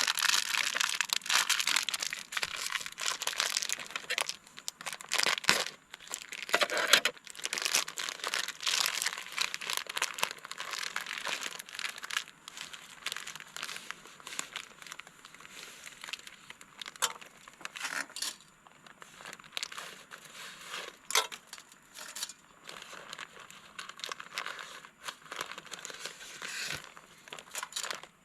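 Plastic pasta packet crinkling and crackling as fettuccine is handled and taken out by the handful, dense for the first ten seconds or so, then sparser with scattered sharp clicks.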